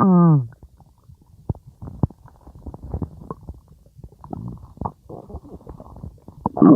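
Stomach growling: a loud growl that falls in pitch for about half a second at the start, then a string of small gurgles and pops, and another loud rumble near the end.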